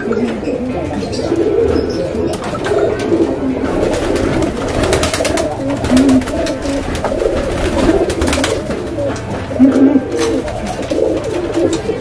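Domestic pigeons cooing continuously in a loft, the courtship cooing of young cocks driving the hens as they pair up. A quick run of sharp wing flaps comes around the middle.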